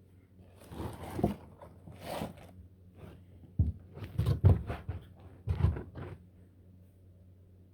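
An iguana biting and tearing at a large collard green leaf, the leaf crunching and rustling in irregular bursts that come thickest in the second half.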